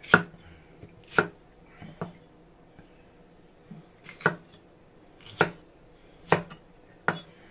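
Kitchen knife chopping a red bell pepper on a chopping board: about seven separate sharp knocks of the blade against the board, roughly a second apart with a longer pause in the middle.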